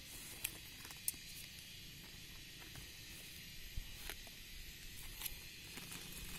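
Faint handling of a plastic grafting tie and the coffee leaves around it: a few small, sharp clicks and rustles over a steady, soft high hiss.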